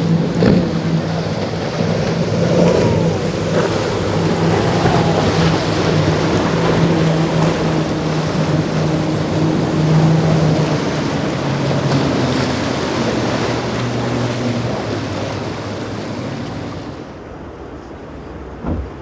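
Motorboat engine running steadily over the rush of waves and wind on the microphone. Its note drops lower about eleven seconds in, and the sound fades near the end.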